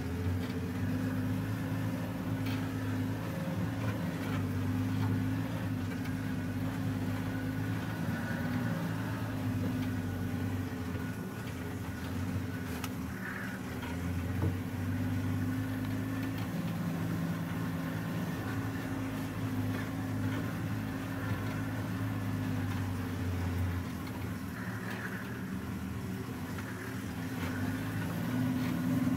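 Open safari game-drive vehicle's engine running steadily as it drives along a dirt track, its engine note shifting a few times with speed and gear.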